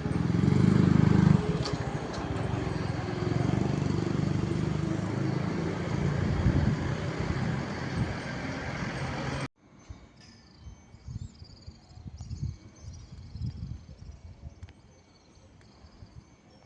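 Steady street traffic noise with a vehicle running close by, then an abrupt cut about nine seconds in to a much quieter scene with short, high bird chirps.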